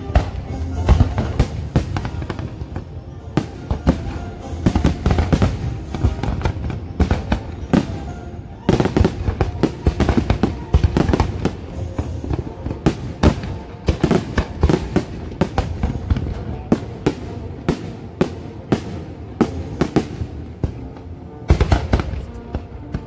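A fireworks show's aerial shells bursting in rapid succession, a near-continuous barrage of booms and crackles that grows densest about nine seconds in. Show music plays underneath.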